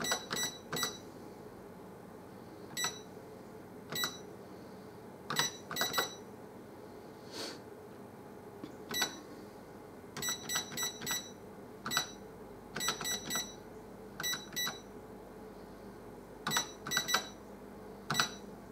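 Olivetti ECR 7700 Plus cash register giving a short electronic beep at each key press as a line of text is keyed in, irregularly spaced, sometimes in quick runs where one key is pressed several times to step through the letters it carries.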